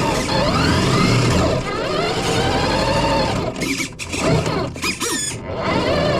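FPV drone's electric motors whining, the pitch rising and falling as the throttle changes, with a few quick sharp pitch swings about two-thirds of the way through.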